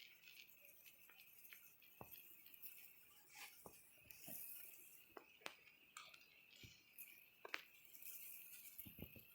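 Near silence with faint, scattered soft clicks and taps of seasoning being shaken and rubbed by hand onto a raw whole chicken, over a faint steady high hiss.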